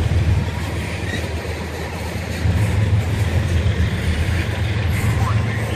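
Freight train's coal hopper cars rolling past close by: a steady, loud low rumble of steel wheels on the rails.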